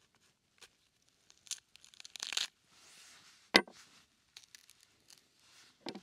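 Rustling and crinkling handling noises, loudest about two seconds in, with a single sharp knock just past the middle.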